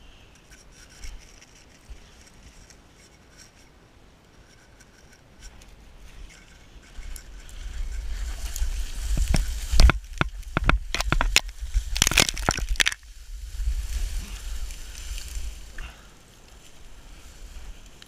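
Loose dirt and rocks giving way on a steep slope, with a person sliding down in them: scraping and rattling grit and stones with heavy rumble against the worn camera. It builds from about six seconds in to a run of sharp knocks and impacts around ten to thirteen seconds, then dies away.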